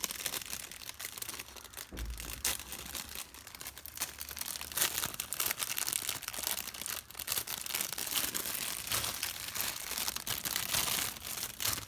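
Plastic packaging crinkling and rustling continuously as it is opened by hand, with bits of tearing.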